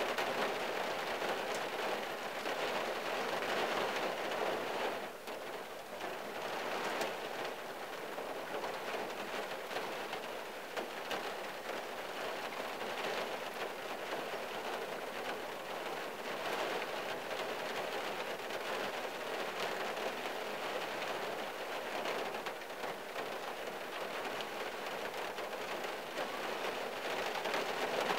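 Steady rain falling on the roof and windshield of a 1974 Valiant, heard from inside the car's cabin, easing briefly about five seconds in.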